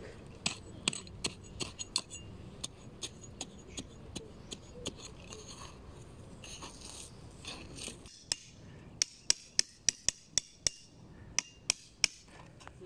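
A small hatchet chopping and scraping into ash and sandy soil in an old fire pit, with repeated short strikes. From about eight seconds in come louder, sharper knocks as the hatchet is used to drive a metal grill stand's legs into the ground.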